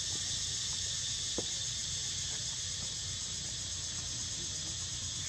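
Steady high, even buzzing of an insect chorus, over a low rumble.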